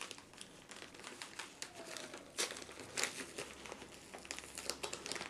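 Brown paper envelope being opened by hand: the paper crinkles and tears in many short crackles, with louder rips about two and a half and three seconds in.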